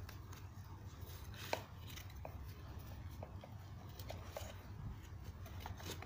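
Nylon webbing belt being worked through the slots of a plastic tackle box: faint rustling of the strap with scattered plastic clicks, the sharpest about a second and a half in, over a low steady hum.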